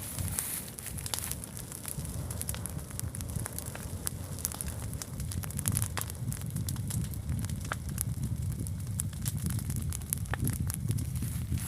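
A large fire burning, with many sharp, irregular crackles over a steady low rumble.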